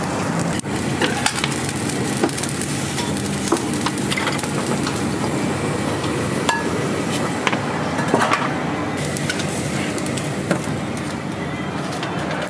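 Busy restaurant kitchen at work: a steady mechanical roar with scattered clinks and knocks of pans, utensils and dishes, and some sizzling from the cooking.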